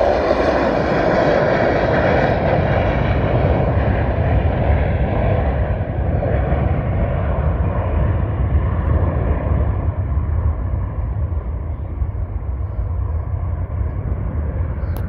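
McDonnell Douglas MD-82 taking off and climbing away on its two rear-mounted Pratt & Whitney JT8D low-bypass turbofans at takeoff power. It is a loud, deep jet rumble whose hiss slowly dulls and fades as the airliner climbs out.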